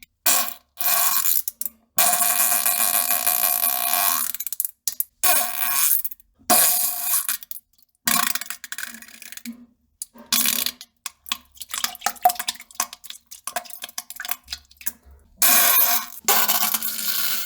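A string of fart and pooping sounds, short and long blasts, some with a steady pitch and others a wet, hissing spatter. Each one cuts off abruptly into silence.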